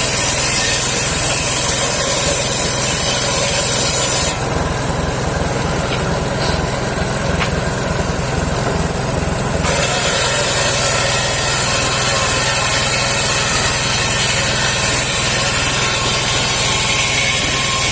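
Engine-driven homemade circular sawmill running while its blade cuts saman (rain tree) wood, with a high hiss over the engine's steady drone. The hiss drops out about four seconds in, leaving the engine running on its own for about five seconds, then comes back.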